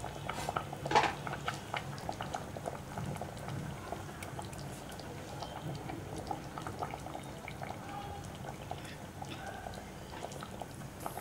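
Rohu fish curry simmering in a stainless steel pot: a steady run of small bubbling pops over a faint low hum, with one louder pop about a second in.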